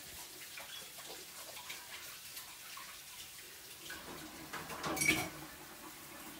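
Water being poured and mixed by hand into a heap of flour, with faint wet trickling and squelching, growing louder about five seconds in.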